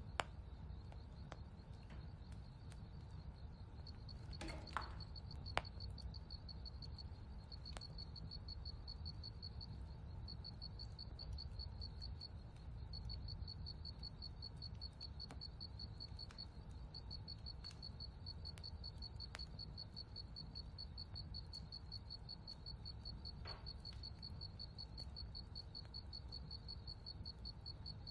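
A cricket chirping in a steady, fast-pulsing high trill, with a few short breaks, over a faint low rumble. A couple of soft clicks stand out, one at the start and one about five and a half seconds in.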